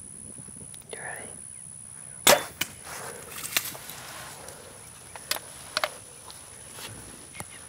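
Compound bow shot: one loud, sharp crack of the release about two seconds in, followed by several quieter sharp snaps and knocks over the next few seconds.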